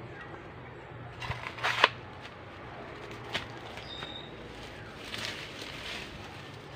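Dry leaves and twigs rustling and snapping as a person moves through forest undergrowth. A quick run of crackles about a second and a half in is the loudest, followed by a single snap a little after the middle and softer rustling near the end.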